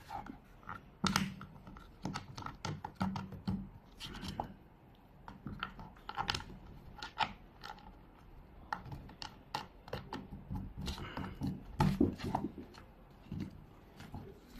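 Irregular clicks, taps and scrapes of small parts being handled and screwed together while a water bike's rudder mount is assembled by hand.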